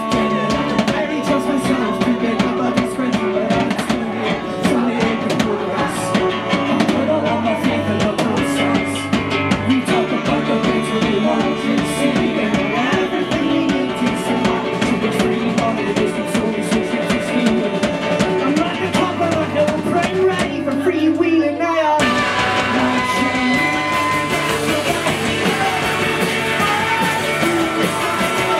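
Live band playing an instrumental passage of a rock song, with a drum kit, a strummed acoustic string instrument and a saxophone. The sound changes abruptly about three-quarters of the way through.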